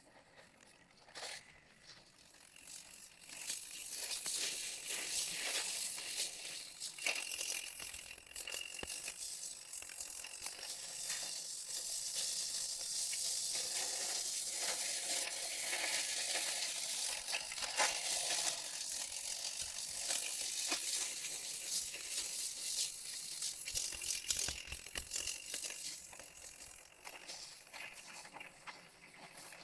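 Dense, rapid mechanical clicking and rattling, like a small ratchet or gear mechanism, building up about three seconds in and fading near the end.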